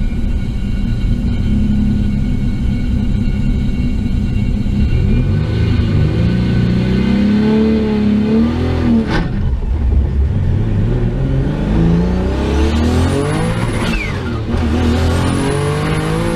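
Turbocharged Ecotec V6 car engine revving under hard acceleration, its pitch climbing and dropping several times. A high whistle rises and holds twice near the end.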